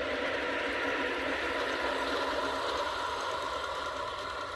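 G-scale model freight train, an NS electric locomotive hauling a long rake of hopper wagons, running along garden track: a steady running noise of wheels on the rails and the drive's whir, slowly fading near the end as the train moves away.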